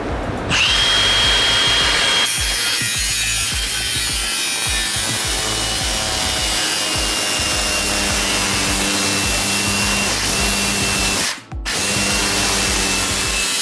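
Power saw cutting a solar panel mounting rail to length: a loud, steady high whine over harsh cutting noise that starts about half a second in, breaks off briefly near the end, then picks up again.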